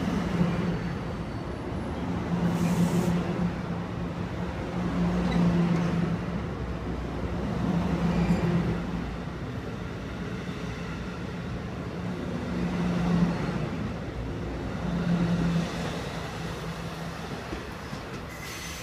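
NJ Transit Multilevel double-deck passenger coaches rolling past as the train departs: a steady wheel-on-rail rumble with a low hum that swells and eases every two to three seconds, fading a little near the end as the rear cab car draws away.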